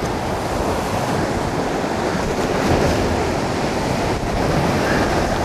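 Sea surf surging and breaking against the rocks below, a steady rushing, with wind on the microphone.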